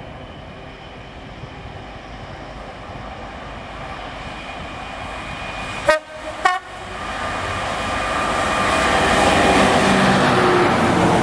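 Class 66 diesel locomotive with its two-stroke V12 engine, hauling a container freight train, coming closer and growing louder. About six seconds in it gives two short horn blasts about half a second apart, then its engine and the wagons get louder as it passes close by.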